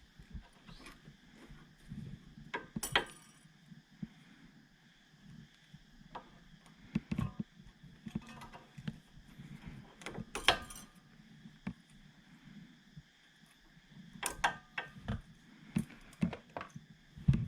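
Metal tools clicking and clinking against the band clamp of a drive shaft's outer CV joint boot as the band is worked off: irregular sharp metallic knocks, the loudest about three seconds in, about ten seconds in and again near the end.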